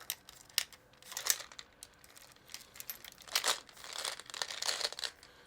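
Crinkling and rustling, like something being handled, in irregular short crackles that grow denser in the second half.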